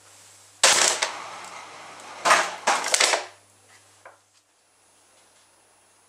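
Plastic pop bottle stamped flat, a sharp crack and rush of air through the garden hose that launches the stomp rocket car. A second and a half later come three more sharp cracks close together.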